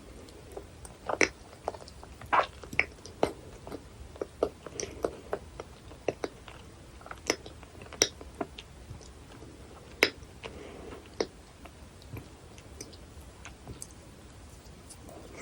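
Close-miked chewing of dense, sticky cheesecake: irregular wet mouth clicks and smacks, a few of them sharply louder.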